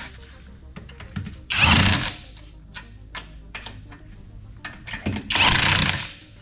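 Power tool, most likely an impact wrench, running lug nuts onto a wheel in two short bursts, one about a second and a half in and one about five seconds in, with small clicks and knocks between them.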